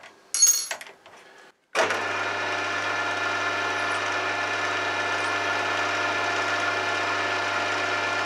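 A couple of brief metallic clinks from hands working at the drill chuck. Then a milling machine's spindle runs steadily with a low hum, its drill bit boring out the brass-plugged transfer port of an air-rifle valve part.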